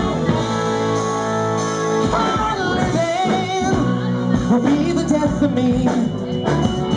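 Live rock band with saxophone, electric guitars, keyboard and drum kit playing between sung lines. A chord is held for about two seconds, then a wavering lead line with vibrato comes in over the band.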